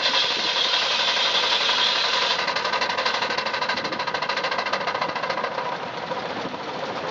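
Antique shingle mill running, its saw cutting a wooden block over a rapid, steady mechanical clatter. The cutting is loudest in the first couple of seconds and eases off after.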